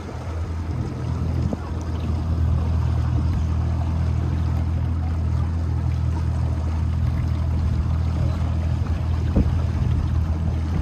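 Boat motor running steadily under way, a low even drone that swells over the first couple of seconds and then holds, with water noise around the hull.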